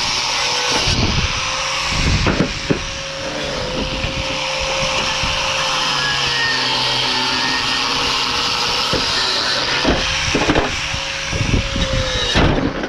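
Electric grinder running steadily against a rusty steel bumper bracket. Its motor tone wavers and dips slightly as it is pressed into the work, with a few knocks and scrapes.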